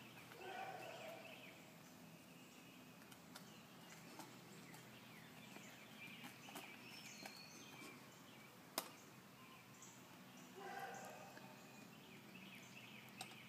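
Near silence: quiet outdoor ambience with faint bird chirps, a single sharp click about nine seconds in, and two brief soft sounds, one near the start and one near the end.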